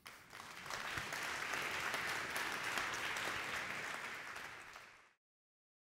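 Audience applauding: dense clapping that builds over the first second, holds, then eases off and cuts off abruptly about five seconds in.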